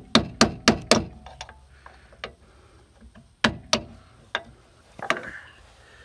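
A small sledgehammer strikes an old hinge pin, used as a drift, to knock the worn bushings out of a Blazer's door hinge: sharp metal-on-metal blows. A quick run of about five strikes comes in the first second, then single blows every second or so.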